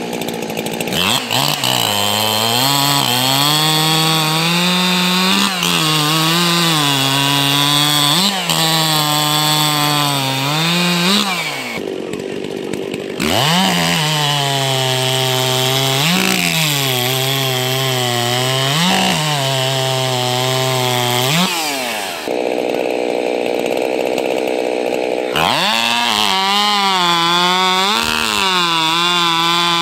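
80cc-class two-stroke racing chainsaws run wide open and cut through a timber cant. The engine pitch sags each time a saw loads into the wood and climbs again as it breaks through, over and over, as one saw after another makes its cuts.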